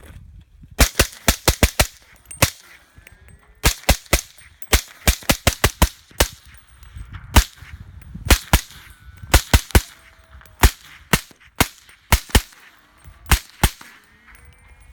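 .300 Blackout rifle firing fast strings of shots into the dirt, about thirty in all, in clusters of several quick shots with short pauses between. Faint wavering whines between the shots are the buzz of bullets tumbling after they strike the ground.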